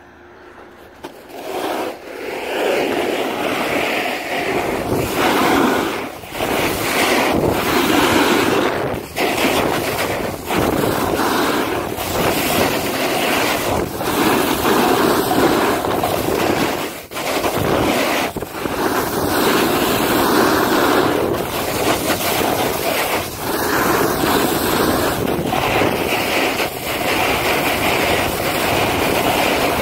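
Skis hissing and scraping over snow during a downhill run, mixed with wind rushing over the phone's microphone; the noise starts about a second in and swells and dips repeatedly, with a few brief drops.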